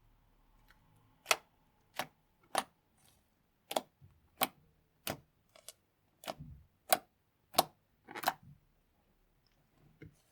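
Slime being squeezed and pressed, popping with about a dozen sharp clicks, roughly one every half to three-quarters of a second.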